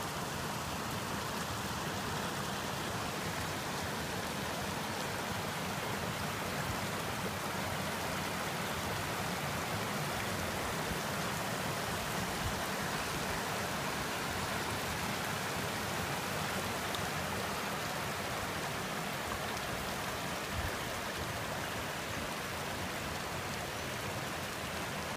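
Steady rushing of a flowing hill stream, an even wash of water noise with no break.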